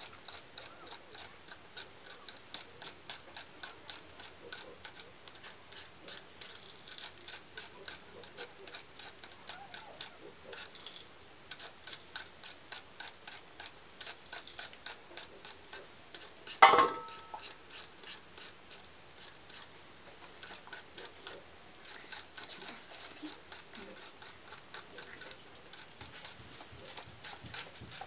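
Small kitchen knives peeling raw potatoes by hand, a steady run of short scraping cuts at about three to four strokes a second. About two-thirds of the way through comes one louder metallic clink with a short ring.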